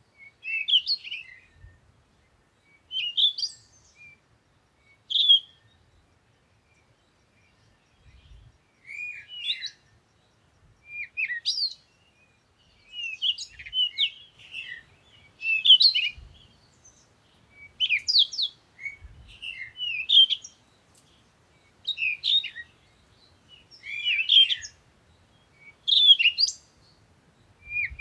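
A bird chirping in short, quick phrases, repeated every second or two with a brief pause early on.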